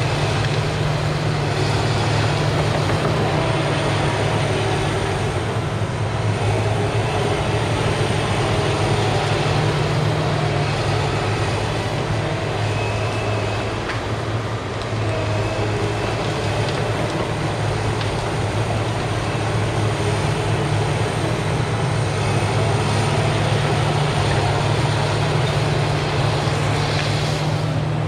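Caterpillar 973C track loader's diesel engine working steadily. It eases briefly about halfway through as the bucket is lifted high, then comes back up.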